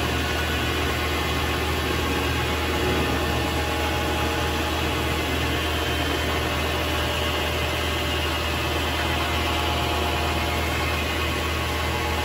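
Vevor MX 400 mini lathe running at a steady speed, its motor and spindle giving a constant hum with a whine of several steady tones, while the cutter is hand-fed by the compound slide into the spinning workpiece to turn a point.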